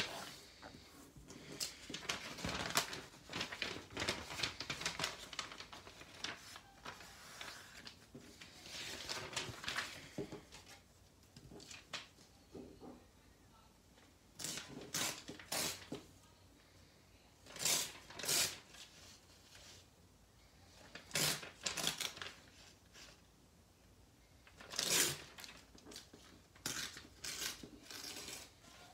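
Magazine paper being handled, creased and torn along the edge of a plastic card held as a straightedge: a series of short rustling and ripping strokes with pauses between.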